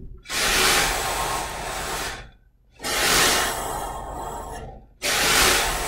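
Metal Slinky spring jerked sideways on a lab tabletop to send transverse waves along it, its coils scraping and rustling across the surface. This happens three times, each sweep about two seconds long, starting sharply and then fading.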